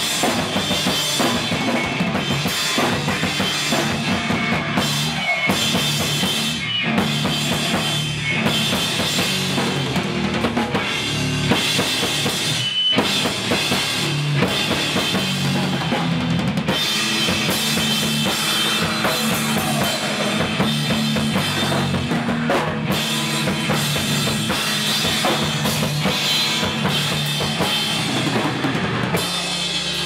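Emo/hardcore band playing loud and fast on drum kit and guitars, the drums loudest, with a very brief stop about 13 seconds in.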